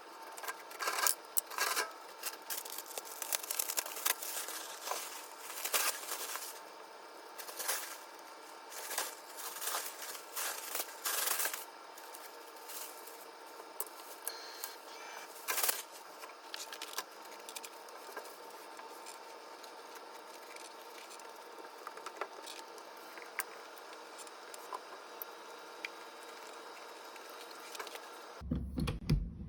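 Hands-on cleaning sounds: a dense run of sharp clicks, clinks and scrapes of hard objects being handled and scrubbed, thinning out after about twelve seconds to scattered light ticks and rubbing. A low steady hum comes in near the end.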